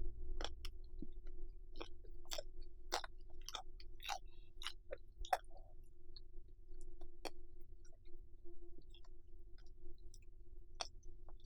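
Close-miked chewing of food, with sharp wet mouth clicks and smacks that come thickly for the first few seconds, then more sparsely. A steady low hum runs underneath.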